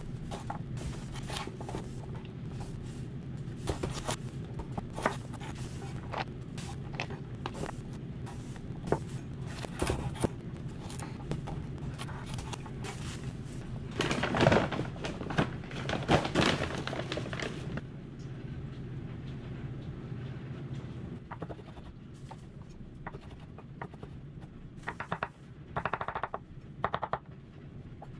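Chef's knife chopping carrots on a wooden cutting board, a steady series of knocks on the board. About halfway, a paper bag rustles for a few seconds as mushrooms are tipped out onto the board. Near the end, the knife slices mushrooms with a few softer knocks.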